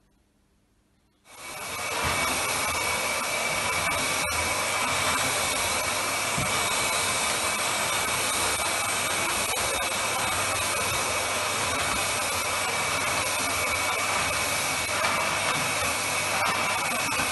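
Dyson DC39 cylinder vacuum cleaner running steadily with a high whine as its floor head is pushed over a rug. Its blocked rubber section has just been cleared and it has full suction. It comes in about a second in after near silence, with a single click about four seconds in.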